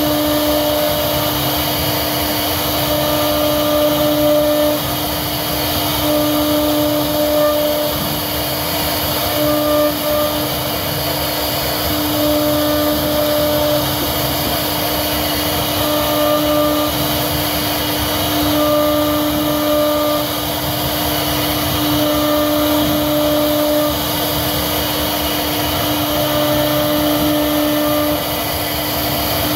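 CNC router spindle running, its cutter carving a relief pattern into a wooden panel: a steady whine over a noise of cutting, the whine growing stronger and easing back every couple of seconds as the bit moves through the cut.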